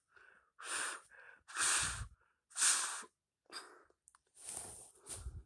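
Breathing close to the microphone: a series of short, breathy puffs, about one a second.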